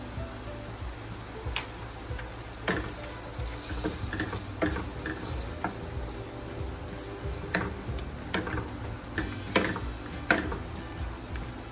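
Wooden spoon stirring shrimp in a stainless steel frying pan of melted butter, with irregular knocks and scrapes of the spoon against the pan, roughly one a second.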